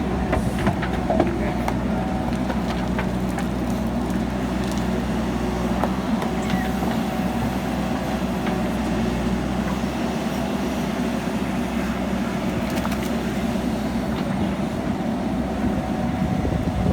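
JCB backhoe loader's diesel engine running steadily, with a few light knocks from the work.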